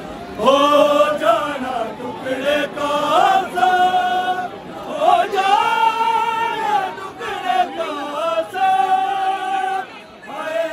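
A noha, a Shia mourning elegy, sung by voice in long held notes that bend and waver between phrases.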